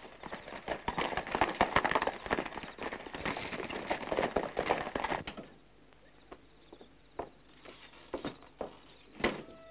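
Hooves of a group of galloping horses clattering on dirt, dying away about five and a half seconds in. Then a few scattered knocks, and near the end a sharp knock with a short squeak, like a door being pushed.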